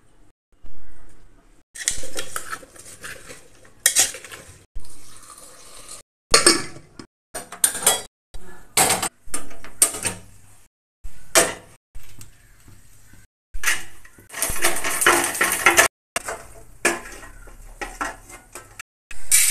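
Aluminium cooking pots and pans clattering and scraping as they are handled and stirred, in many short separate bursts with a longer one about three quarters of the way through.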